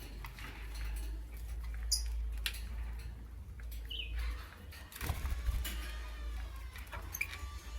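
Lovebirds giving short, high chirps now and then, among small clicks and scratches of movement. A longer, curving call comes after about five seconds. A low hum runs underneath.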